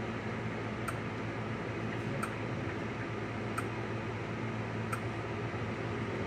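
Steady hum of a room fan or air conditioner, with faint sharp ticks at irregular intervals of one to two seconds.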